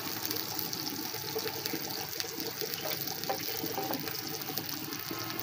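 Sliced onions sizzling in hot oil on a flat iron tawa, a steady hiss, with a metal spatula turning them now and then.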